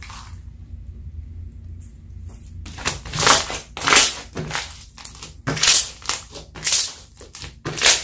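Slime being squeezed and pressed by hand, its trapped air pockets popping and crackling. After a quiet start there is a run of about seven loud crackly pops from about three seconds in.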